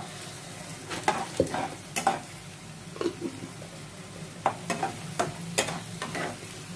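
Onion paste frying in oil in a kadai, sizzling steadily while a spatula stirs it, scraping the pan in irregular strokes. The paste is being fried until its raw smell is gone.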